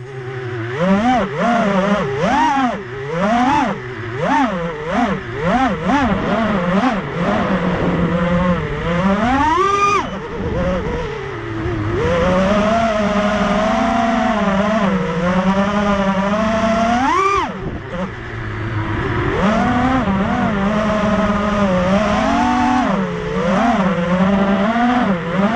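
Racing quadcopter's four brushless motors (Racerstar 2205 2300kv) spinning three-blade 5045 props, whining with a pitch that swoops up and down in quick throttle blips. The pitch climbs steeply in two hard full-throttle punches, about ten seconds in and again a little past seventeen seconds, and holds steadier in between.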